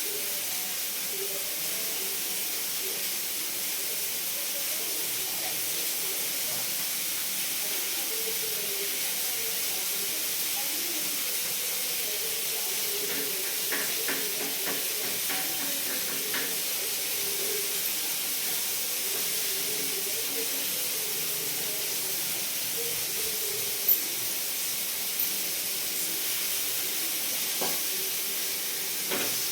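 Fish frying in hot oil in a pan: a steady sizzle. It is broken by a few light taps and one sharp click about 24 seconds in.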